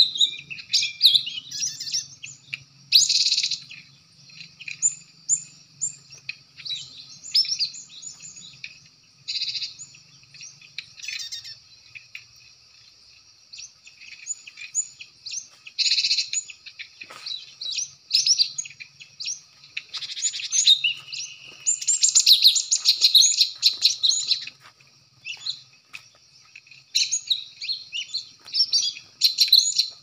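Cinereous tits (gelatik batu) calling: many short, high chirps and quick trills coming in bursts, with lulls between them and the busiest stretch a little past the middle.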